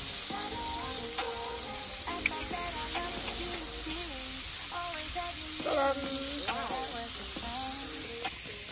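Food sizzling as it fries in a pan, a steady crackling hiss, with a song playing in the background, its melody stepping from note to note.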